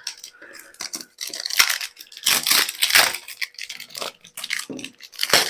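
A mobile phone's retail packaging being opened and handled, with irregular rustling, crinkling and scraping.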